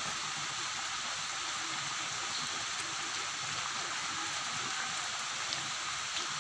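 Chicken caldereta sizzling and simmering in a pan, a steady hiss of cooking sauce.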